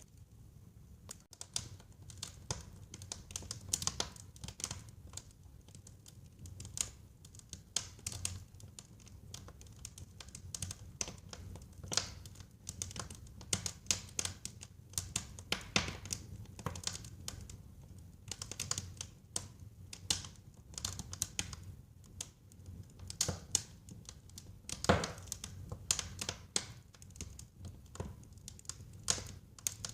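Fire crackling in a fireplace: irregular sharp pops and snaps over a low steady rumble, with one louder pop late on.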